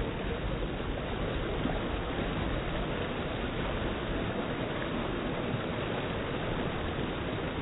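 Surf washing and foaming in over rocks at the water's edge: a steady rushing of water with a low rumble.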